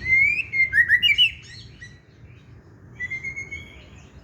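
White-rumped shama (murai batu) singing: a quick run of rich, slurred whistled notes, a short pause, then a long, steady whistle near the end.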